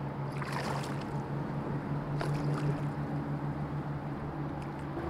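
A hooked smallmouth bass splashing at the surface beside a kayak, twice, about half a second in and again about two seconds in, over a steady low motor hum.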